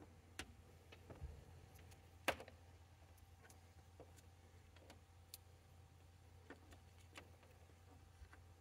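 Near silence with faint scattered clicks and taps, the loudest about two seconds in, from a multimeter test lead and its clip being handled and clipped on; a faint low steady hum underneath.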